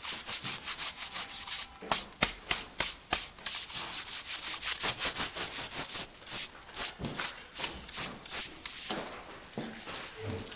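Hand rubbing work on a woodblock print in moku-hanga printing: quick, repeated rubbing strokes on paper and wood, several a second.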